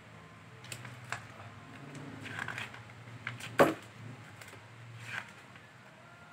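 A plastic parts bag and a paper sheet being handled on a treadmill deck: scattered crinkles and clicks, with one sharp knock about three and a half seconds in.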